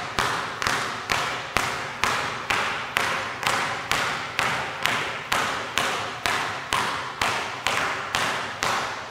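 Basketballs dribbled on a hardwood gym floor in a steady rhythm of about two bounces a second, each bounce echoing off the hall.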